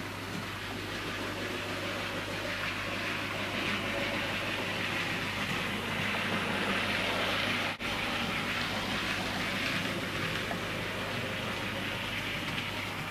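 Model diesel locomotive running on a model railway layout: a steady whirr of its small electric motor and wheels on the track, over a low steady hum. The sound drops out briefly about eight seconds in.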